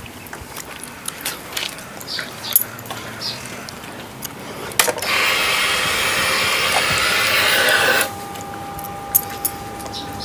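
Light clicks and rattles around a parked Ducati Panigale 1199 with its engine off. About five seconds in, a steady hiss starts, lasts about three seconds and cuts off sharply, leaving a faint steady high whine.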